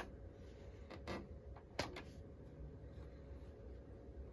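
Switches on a Technics M205 cassette deck clicking as they are pressed: a sharp click at the start, then two more about one and two seconds in, over a faint steady hum.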